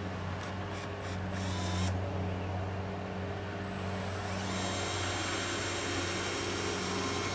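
Cordless drill driving a self-tapping screw through a clip into styrofoam pool coping: several short trigger pulses in the first two seconds, then a longer steady run from about four and a half seconds on.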